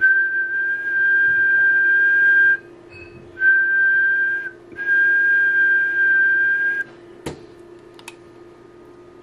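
A person whistling one steady high note into the microphone in three held stretches, the middle one slightly lower and ending with a small upward flick, to frequency-modulate the 2 m transmitter. A sharp click follows about seven seconds in.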